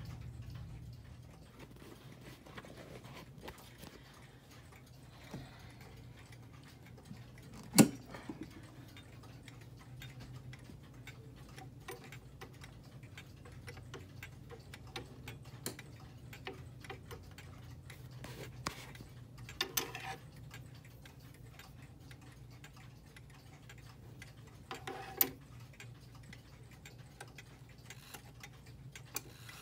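Howard Miller 613-303 wall/mantle clock's pendulum movement ticking faintly. A sharp knock sounds about eight seconds in, and a few louder clicks come later.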